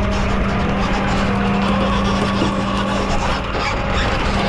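Rollback tow truck's engine and hydraulics running with a steady low hum.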